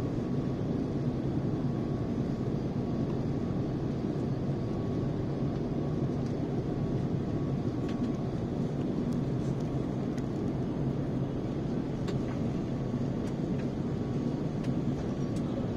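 Steady cabin noise inside an Airbus A350 airliner descending through cloud: an even, low rush of airflow and engine noise, with a faint thin tone above it and a few light ticks.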